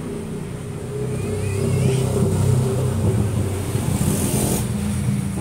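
A motor vehicle's engine running, growing louder about a second in and holding steady.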